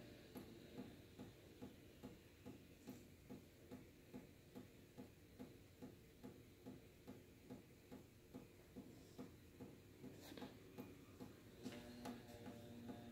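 Faint, steady ticking at about two and a half beats a second, with two sharper clicks near the end.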